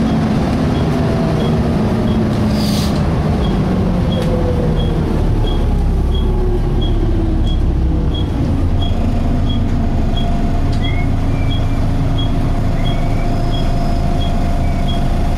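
Volvo B7TL bus's diesel engine and cooling fan running, heard on board, the engine pitch falling over the first several seconds as the bus slows, then settling to a steady idle. A short hiss of air comes about three seconds in, and a regular high tick repeats about three times a second, with a few faint brief squeaks near the end.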